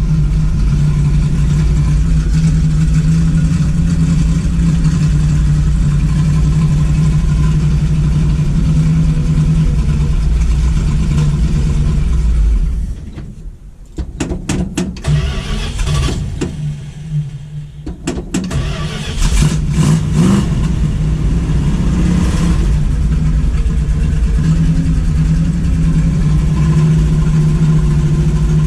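1972 Dodge Demon's engine running rough after sitting a long time. About thirteen seconds in it falls away and sputters unevenly, catching in ragged bursts, then picks back up about six seconds later and runs steadily again. The owner blames the roughness on stale, dead gas.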